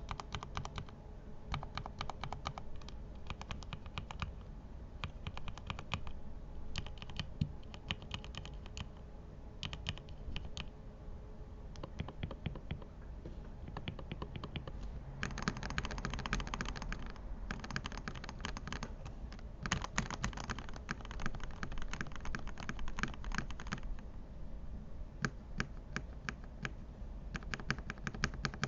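Lubed mechanical keyboard being typed on fast: quick runs of keystrokes in bursts with short pauses, busiest about halfway through and again near the end.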